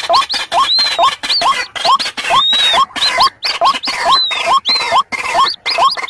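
White-breasted waterhens, chicks and adults together, calling in a noisy chorus. Short rising notes repeat about twice a second, overlaid by higher arching squeals every second or two and scratchy clicking between the notes.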